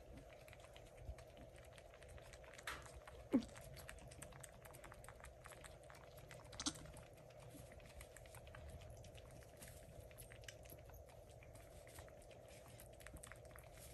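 Faint scattered rustling and clicking of wood-shaving and straw bedding as a newborn goat kid shuffles under its mother to nurse, over a steady faint hum. A brief low falling sound about three seconds in is the loudest moment.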